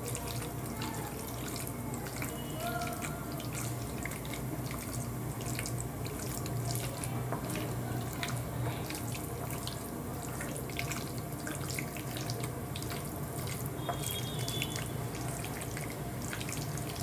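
Wet squelching and small clicks of raw chicken being mixed by hand with a thick spiced tomato marinade in a glass bowl, over a steady low hum.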